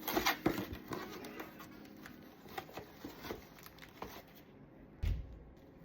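Cardboard box and packaging being handled and pulled open: an irregular run of rustles, crinkles and small knocks, with a dull thump about five seconds in.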